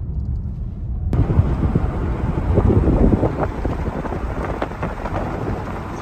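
Low road rumble from inside a moving car, cut off about a second in by wind buffeting the microphone outdoors: loud, crackling gusts, strongest two to three seconds in.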